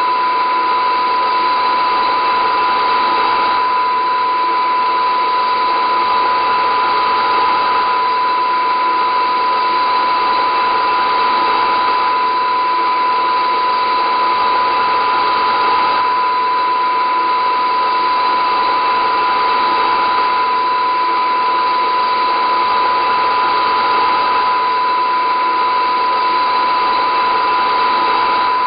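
A steady, unchanging drone of hiss and hum with a constant high whine running through it, with no breaks or changes.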